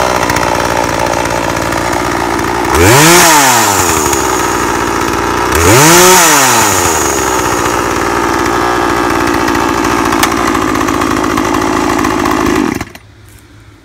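Poulan Pro 18-inch 42cc two-stroke chainsaw idling, revved twice, about three and six seconds in, each a quick rise and fall in pitch. Near the end it is switched off and the engine stops abruptly.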